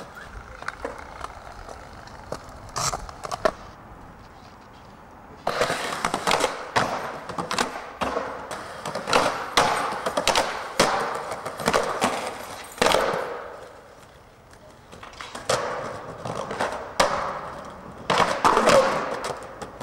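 Skateboards rolling over stone paving tiles, with sharp clacks of boards popping, landing and trucks striking a ledge. The rolling comes in two longer runs, with quieter gaps between tricks.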